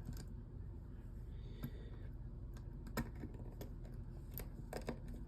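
Scattered light clicks and taps of tiny phone screws and a small screwdriver being handled while the screws are put back into a Samsung Galaxy S9 during reassembly. The sharpest click comes about three seconds in, with a few more close together near the end.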